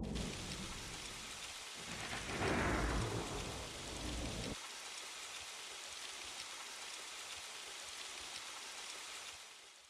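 Sampled thunder and rain sound effects from the Roland A-6's built-in library. A low thunder rumble swells about two seconds in and cuts off abruptly after about four and a half seconds, over a steady rain hiss that carries on alone and fades out at the end.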